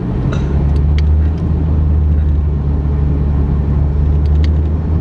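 Steady low drone of a Chevrolet Camaro SS's V8 engine running, heard from inside the cabin, with a few faint ticks.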